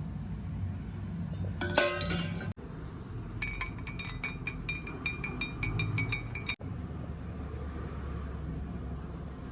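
Metal spoon clinking against a glass: one short jangle about two seconds in, then a quick, even run of clinks, about six a second for some three seconds, as a drink is stirred.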